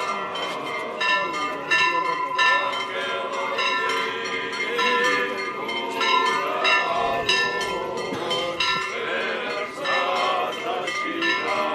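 Church bells rung in quick repeated strokes, about two to three a second, each stroke ringing on, with the voices of the procession chanting and talking underneath.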